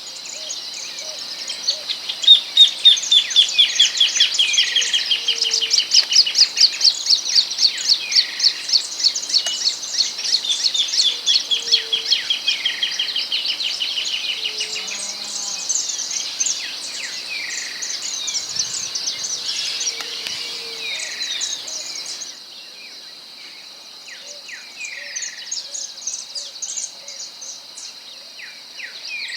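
Wild birdsong from several birds, led by a long series of quick repeated notes, about three a second, that slowly fall in pitch for some twelve seconds. Other whistled and chirped phrases and a steady high insect drone sit behind it. Near the end the background suddenly thins, as a different recording takes over.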